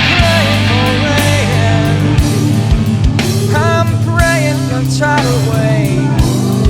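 Heavy rock music with sung vocals, guitar and drums; the voice comes in about three seconds in.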